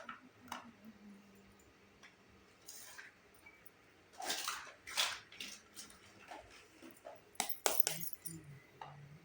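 Small toy kitchen pieces clicking, tapping and clinking as they are handled, with a short rustle of packaging about four seconds in and a quick run of clicks near the end.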